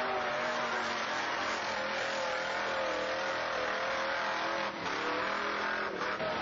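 Mud-racing 4x4's engine running with its pitch wavering slightly up and down, over a steady haze of outdoor noise.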